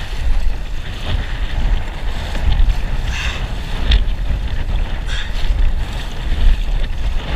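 Strong gusting wind, which the angler reckons at 20 to 30 mph, buffeting the microphone with a heavy low rumble, with water splashing against the kayak at intervals.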